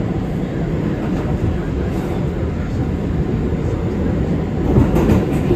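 New York City subway train running on the track: a steady low rumble, with a brief louder swell near the end.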